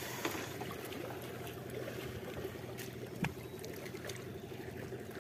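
Small waves lapping and splashing against a small outrigger boat's hull and bamboo outrigger, under a faint steady hum. Two light knocks, one just after the start and one about three seconds in.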